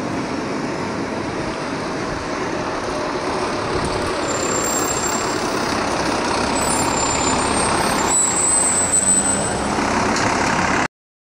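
Fire department ladder truck's diesel engine running as the truck pulls out and drives past, growing louder as it comes close, then cutting off suddenly near the end.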